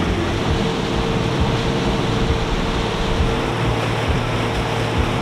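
A boat under way: a steady engine hum over the rush of water along the hull, with wind buffeting at the low end.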